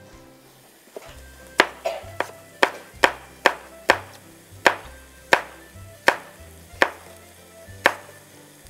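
Kitchen knife slicing a Granny Smith apple on a cutting board: about a dozen sharp knocks of the blade striking the board, at an uneven pace of roughly two a second. Faint background music runs underneath.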